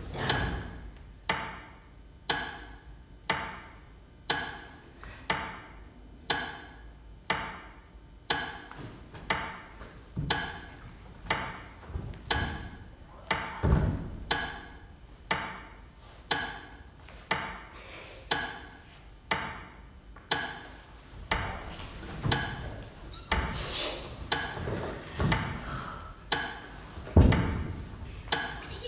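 Steady clock-like ticking, about two sharp ticks a second, each with a short pitched ring. Deep thuds break in twice, around the middle and near the end.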